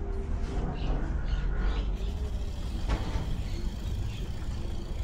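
Outdoor ambience: a steady low rumble with faint bird chirps, and a single knock about three seconds in.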